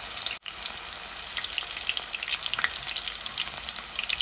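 Minced garlic deep-frying in hot oil in a wire spider strainer: a steady sizzle with many small crackles and pops, breaking off very briefly about half a second in.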